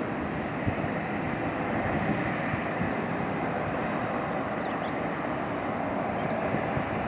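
Cessna Citation CJ3 business jet's twin turbofan engines heard from a distance as a steady rush as the jet lands and rolls out on the runway.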